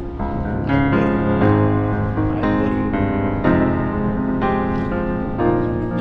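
Background music: a piano playing sustained chords, a new chord about once a second.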